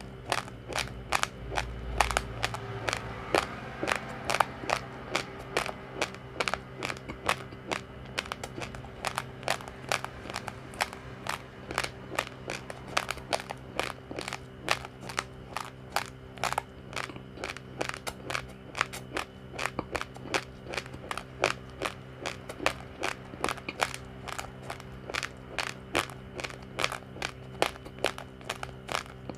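Close-up crunching of uncooked rice grains being chewed, about three crisp crunches a second in a steady rhythm, with a faint steady hum underneath.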